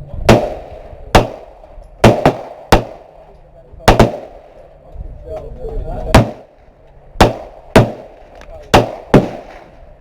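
Gunshots at a shooting range: about a dozen single shots at irregular intervals, some closer and louder than others, each with a short echo.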